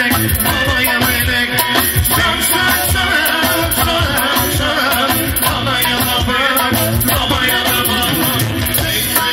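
Loud dance music with a steady beat and a wavering melody line on top.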